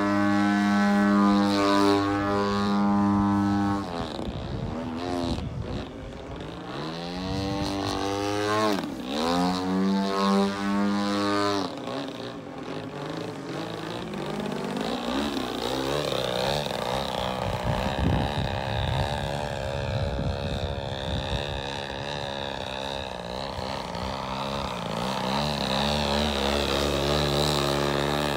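Radio-controlled aerobatic model airplane's motor and propeller running in flight, the pitch swooping up and down several times in the first half as it passes and changes throttle, then settling into a steadier drone.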